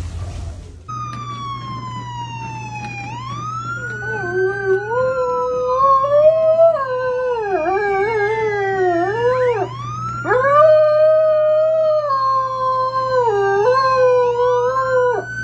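A dog howls along with a wailing siren. The siren starts about a second in with slow falling and rising sweeps. The dog joins a couple of seconds later with a long, wavering howl that breaks off briefly a few times.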